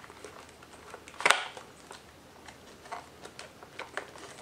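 Motorcycle wiring looms and their plastic connectors being pulled through a gap in the rear subframe: scattered light clicks and rustles, with one much louder sharp snap about a second in.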